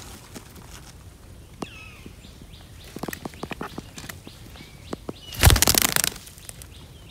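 Alexandrine parakeets at a tree-hollow nest: a short call about two seconds in and a run of light sharp ticks, then a loud flurry of wingbeats lasting under a second as one flies in, a little past halfway.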